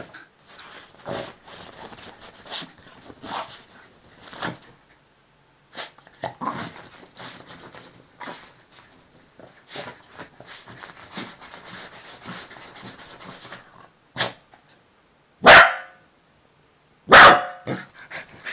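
Scottish terriers scuffling on a quilted bedspread: fabric rustling and rubbing with short irregular scrabbles, then two loud barks about a second and a half apart near the end.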